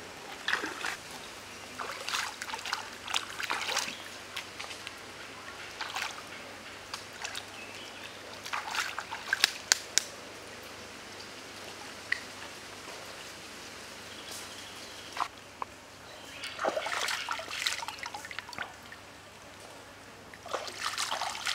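Hands rinsing a raw chicken leg in a stream: water splashing and dribbling in irregular bursts, over the steady flow of the stream.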